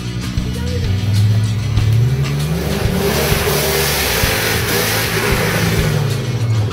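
Off-road 4x4 engine revving hard under load as it claws up out of a deep dirt rut. The pitch climbs twice. Midway there is a hiss of dirt sprayed by the spinning tyres.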